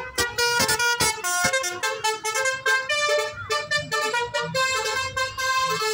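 Bus 'telolet basuri' musical horn playing a quick tune, several horn tones sounding together and changing note several times a second.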